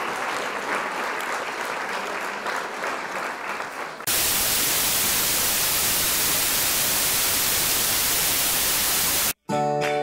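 Intro sound effects: about four seconds of a noisy, crackling rush, then a flat, steady hiss like static for about five seconds. It cuts out briefly, and music with held notes starts near the end.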